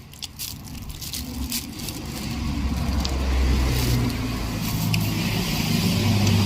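A motor vehicle's engine rumbling low, growing louder from about two seconds in and then holding steady. A few sharp clicks come before it.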